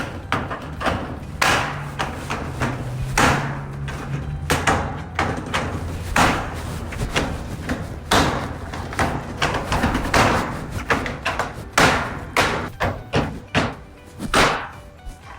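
Sheet-metal channels being snapped and knocked onto the ends of corrugated metal shed roof sheets: a run of irregular knocks and thumps, several each second.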